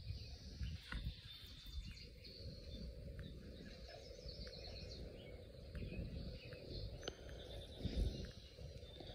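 Domestic tabby cat purring softly while its belly is stroked, with faint high chirps in the background.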